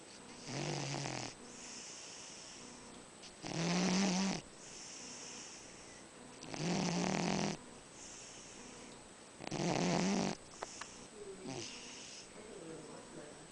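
A sleeping cat snoring: four loud snoring breaths about three seconds apart, each under a second long, with a low buzz and a softer hissing breath between them. After the fourth snore only fainter, irregular sounds remain.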